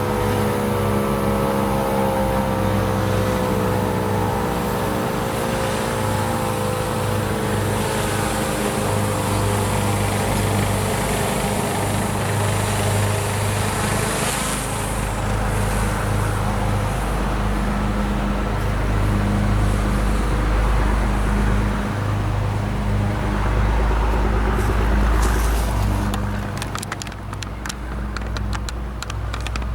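Federal Signal Model 7 tornado siren winding down after its test activation, its tone falling steadily in pitch and fading out over the first several seconds. A steady low hum follows, with a run of sharp crackles near the end.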